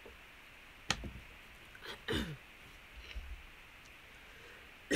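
A person drinking from a plastic bottle and clearing her throat: a sharp click about a second in, a short throat-clearing noise near two seconds, and a louder one starting at the very end.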